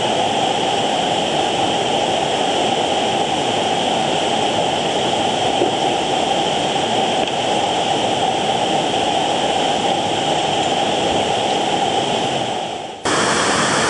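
Steady rush of a nearby mountain stream and waterfall. About a second before the end it dips, then cuts abruptly to a brighter, hissier rush of water.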